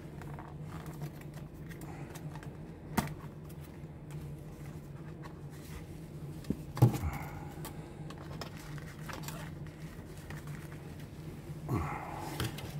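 Hard clear plastic clamshell case being opened and a tissue-wrapped figure handled: a few sharp clicks of the plastic, about 3 s and 6.5 s in, over a low steady hum.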